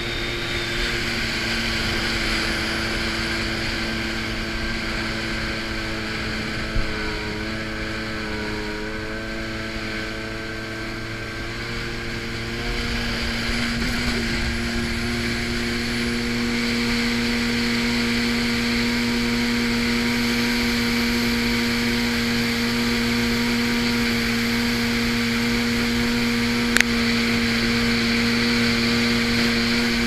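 Yamaha GP800R jet ski's two-stroke engine running steadily at speed on the water. Its pitch sags a little about a third of the way in, then climbs and holds steady and slightly louder for the rest. There is a sharp click near the end.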